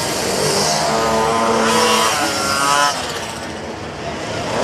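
Pocket bike (mini moto) engines running on the race track, one climbing in pitch to a high whine as a bike accelerates, then falling away about three seconds in.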